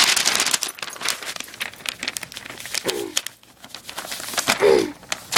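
Dog chewing and tearing paper: rapid crinkling and ripping with crumpling paper throughout.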